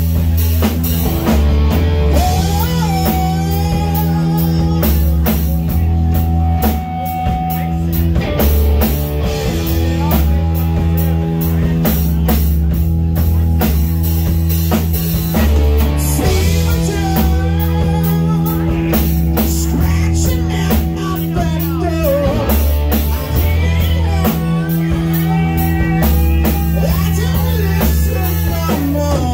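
Live rock band playing loudly: electric guitar, bass guitar and a drum kit. The guitar plays gliding, bent lead notes over a steady bass and drum groove.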